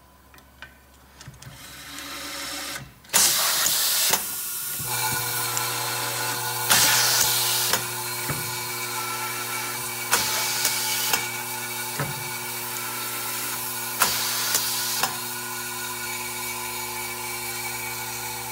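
Automatic-feed DC electric screwdriver driving screws into a brake rotor's ABS ring: four loud bursts of about a second each, three to four seconds apart, one per screw. Under them runs a steady machine hum.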